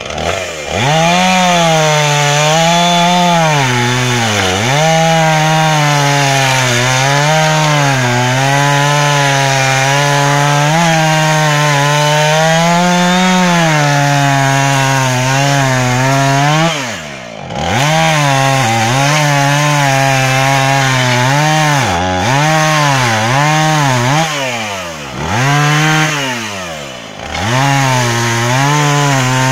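Husqvarna 445 two-stroke chainsaw cutting through a stack of small logs at high revs, its pitch sagging as the chain bites and rising as it frees. About two-thirds of the way through it drops briefly to idle, then is revved back up for several shorter cuts.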